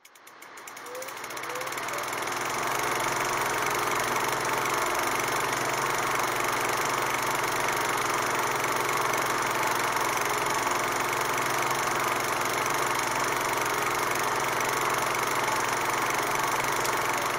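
Steady mechanical whirring noise with hiss, fading in over the first two seconds and then holding even.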